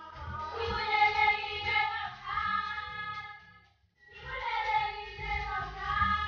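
A song with singing over a bass beat; the music cuts out completely for a moment just before four seconds in, then comes back.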